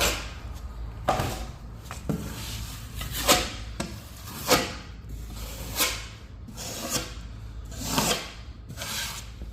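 Drywall taping knife scraped firmly over paper tape bedded in joint compound, in a series of short strokes about one a second, squeezing excess mud out from under the tape.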